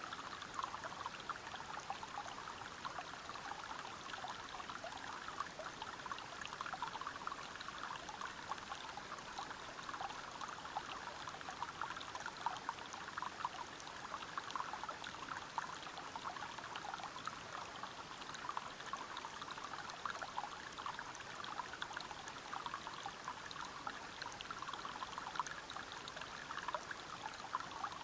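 Water flowing steadily over rocks, a continuous rush full of small splashes and trickles.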